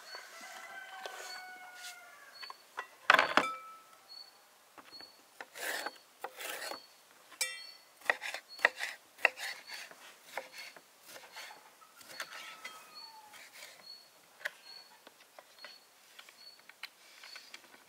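Handling noises: scattered knocks, clicks and scraping, with a sharp knock about three seconds in. A faint high tick repeats a little more than once a second.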